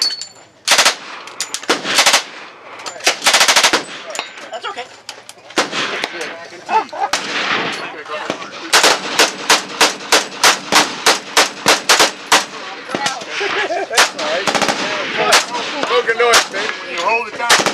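Full-auto gunfire from a Thompson submachine gun: three short bursts in the first few seconds, the last nearly a second long. Then a G36-style rifle fires many rapid shots, with an even run of about four a second in the middle.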